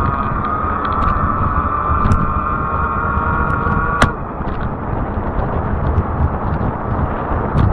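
Fat-tire e-bike's electric motor whining with a steady tone that rises slightly in pitch, then cutting off with a click about four seconds in. Under it is the constant rumble of wind and tyres on the pavement, with scattered small ticks and rattles.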